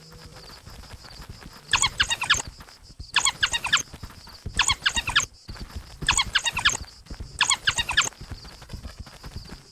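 African wild dogs giving their high, bird-like twittering calls in five rapid bursts about a second and a half apart, over a steady high-pitched hum.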